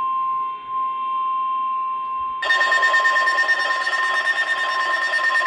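NOAA Weather Radio warning alarm tone: a steady single-pitched beep near 1 kHz, the 1050 Hz tone that announces a warning. About two and a half seconds in it turns louder and harsher, with a second, higher steady tone alongside it.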